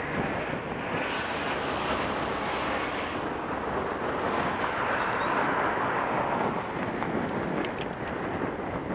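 Wind rushing steadily over the microphone of a camera mounted on a moving bicycle, with passing car traffic underneath.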